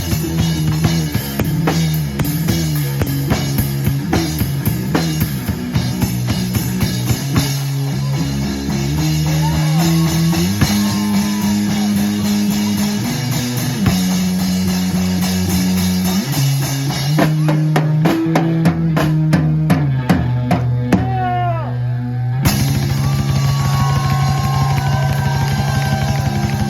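Live rock band playing: drum kit, bass guitar and electric guitar. About 22 seconds in the music changes abruptly to a steady held bass with a fast rhythm.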